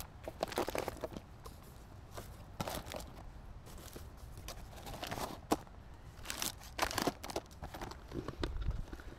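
Plastic food packaging and the foil-lined insulated cool bag crinkling and rustling in short irregular bursts as items are lifted and moved around inside it, with a few dull handling knocks near the end.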